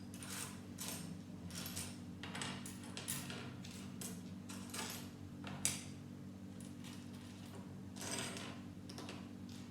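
Loose plastic Lego pieces clicking and clattering irregularly as they are sifted through by hand, with one sharper click a little past halfway, over a steady low hum.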